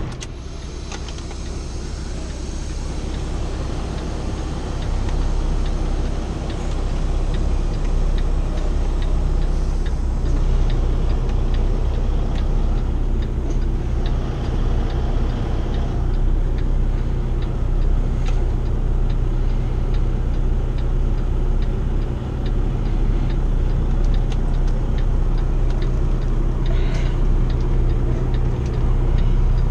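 Diesel engine of a 2015 Kenworth T680, heard from inside the cab, running steadily at low speed while the truck is maneuvered. Its low note grows a little stronger about ten seconds in.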